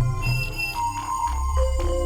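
Electronic suspense music: held synth tones over a low bass drone, with a quick run of struck notes, a few a second, shifting in pitch.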